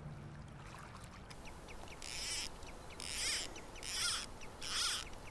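Fly reel's click-and-pawl ratchet buzzing in four short bursts about a second apart as line is pulled off it by hand, starting about two seconds in.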